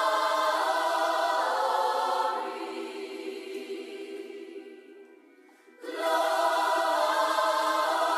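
Intro music: sustained held chords with no bass, fading over a few seconds almost to silence, then coming back in suddenly about six seconds in.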